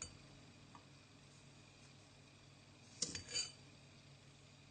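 Mostly quiet room tone. About three seconds in comes a short clink and a brief scrape of a spoon against a small glass jar, as sugar is spooned over chopped onion.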